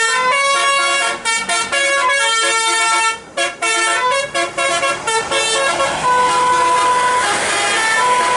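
Bus 'telolet basuri' multi-tone melodic horn playing a quick tune of stepping notes, with short breaks in the first five seconds. From about six seconds in it holds longer notes over a rushing noise.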